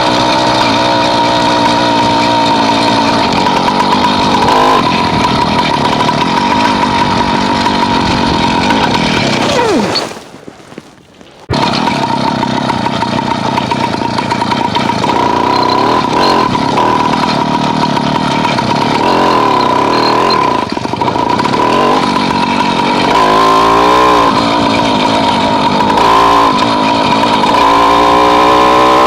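Small engine of a motorized bicycle engine kit running hard, with a steady high-pitched whine over the engine note. It cuts out abruptly for about a second and a half around ten seconds in, then picks up again, and its pitch climbs near the end as it revs up.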